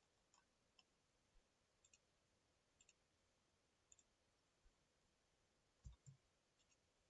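Near silence broken by faint, scattered computer mouse clicks, some in quick pairs; the loudest pair, about six seconds in, has a low thump.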